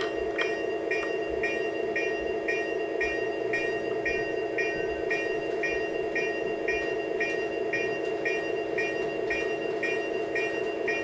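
Electronic locomotive sound from an HO scale model train's MRC Symphony 77 sound unit: a steady electric-locomotive hum with a bell dinging about twice a second.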